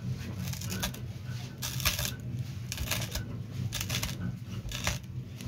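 Steel tube coconut opener being pressed and twisted into the husk of a green tender coconut, giving a series of irregular crunching scrapes and clicks as it cuts a drinking hole.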